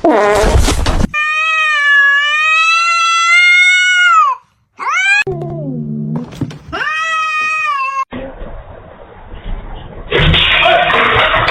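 A cat's long drawn-out meow lasting about three seconds, followed by shorter meows, including another a few seconds later. A loud, muffled, noisy stretch comes near the end.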